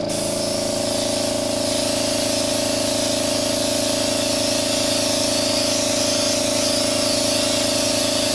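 Airbrush spraying a light coat of blue paint: a continuous, even hiss of air and atomised paint, over a steady hum.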